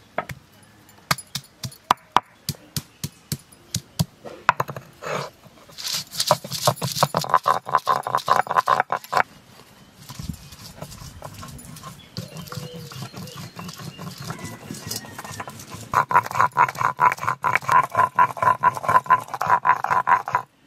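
Stone muller on a flat grooved stone grinding slab (sil-batta): separate knocks as ginger, garlic and green chillies are crushed, then fast, even rocking strokes as they are ground to a wet paste. There is a quieter stretch of low noise in the middle before the fast grinding strokes come back.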